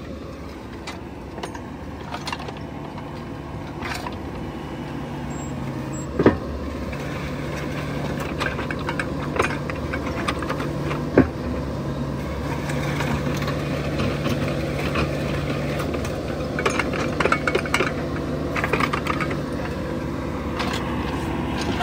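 Heavy equipment engine running steadily at a fairly even speed, growing a little louder after the first few seconds, with scattered knocks and clanks. The two sharpest come about six and eleven seconds in.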